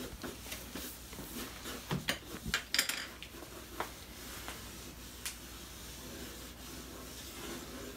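Pencil rubbing and scratching on a large sheet of drawing paper on an easel, with a few sharp knocks and rustles about two to three seconds in as a sketchbook is handled and set down.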